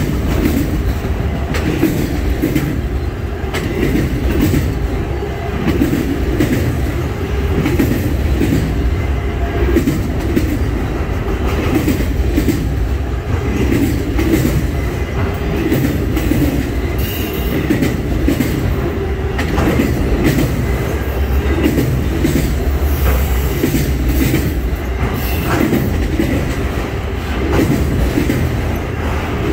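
Loaded autorack freight cars of a mixed auto train rolling past at speed: a steady, loud rumble with the wheels clicking and clattering on the rails.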